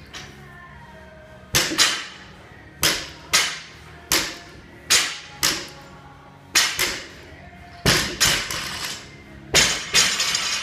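Loaded barbell with bumper plates hitting the floor over a run of deadlift reps: about seven sharp clanks, one every second and a half or so, each mostly followed by a quick second knock as the plates bounce. The last landing, near the end, is a longer rattle as the bar is set down.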